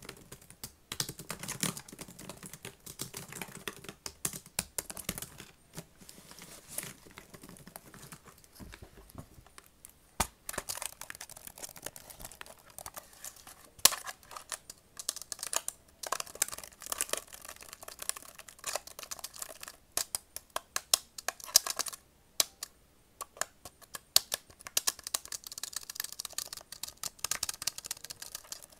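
Fast, hard tapping on a laptop keyboard: dense flurries of key clicks with short pauses between them. One much louder knock about halfway through.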